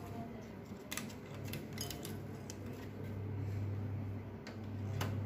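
Scattered light clicks and taps of printer parts being handled and fitted by hand, over a steady low hum.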